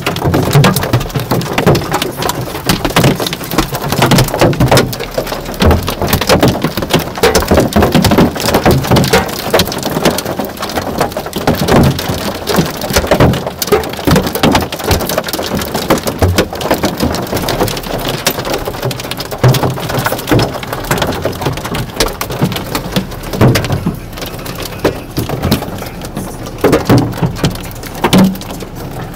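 Hail and heavy rain drumming on a car's roof and windows, heard from inside the cabin: a loud, dense, unbroken patter of hard hits.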